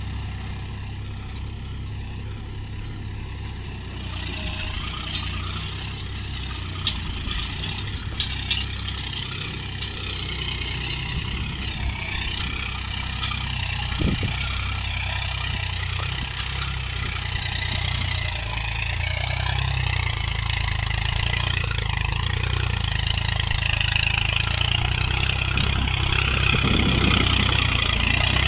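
Mahindra Yuvo Tech Plus 415 DI tractor's diesel engine running steadily under load while pulling a tillage implement through the soil. It grows gradually louder as the tractor comes closer, with a few faint clicks in between.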